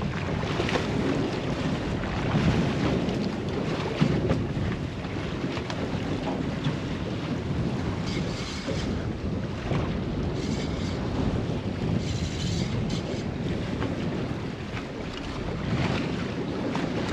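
Wind buffeting the microphone over water sloshing against a small boat's hull at sea, with a few faint clicks.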